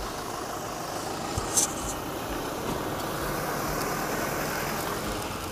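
Toyota Hilux pickup's engine idling steadily, with one brief sharp click about one and a half seconds in.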